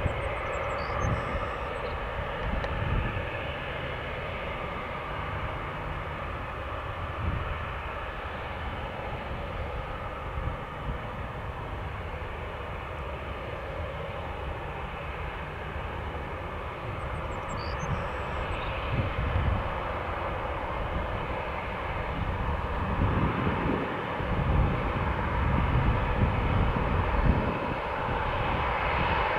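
Airbus A340's four jet engines running at taxi power, a steady whine and rush that grows louder over the last several seconds.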